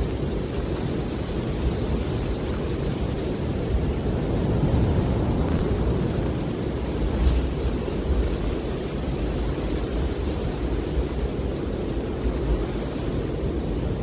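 Strong wind blowing, a steady low rumble that swells and eases slightly.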